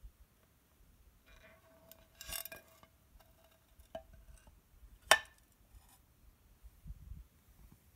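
Cast glass leaf being handled and seated in a slotted wooden base: a short scrape about two seconds in, a small click, then one sharp knock of glass against the stand a little after five seconds, the loudest sound.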